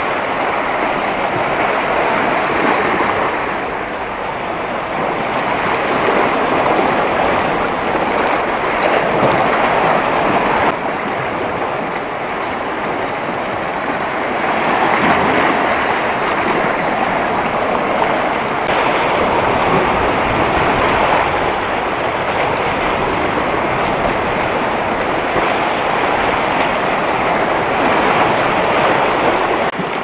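Sea waves washing over and breaking on shoreline rocks: a continuous rush of surf that swells and eases every few seconds.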